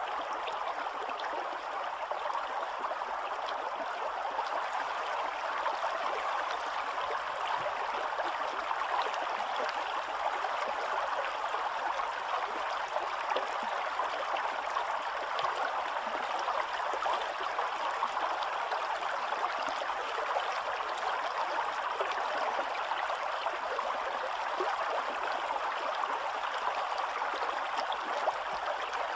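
Shallow stream flowing steadily along a stone-lined channel through reeds, an even, unbroken rush of water.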